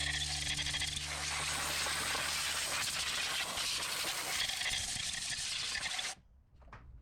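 A steady, loud hiss of rushing air that cuts off abruptly about six seconds in.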